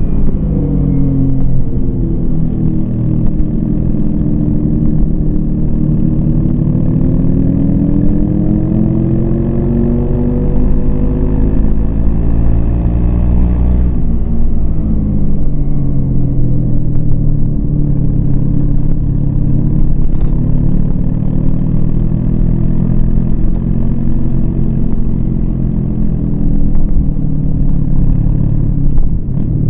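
Yamaha MT-25 parallel-twin motorcycle engine pulling under throttle. Its pitch climbs steadily for about twelve seconds, drops sharply about fourteen seconds in, then rises again and holds, over a steady low rumble.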